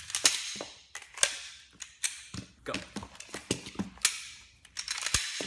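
Glock pistol parts clicking and clacking in two pairs of hands as the pistols are stripped and fitted back together: sharp, irregular clicks of steel slides and polymer frames, sometimes several a second.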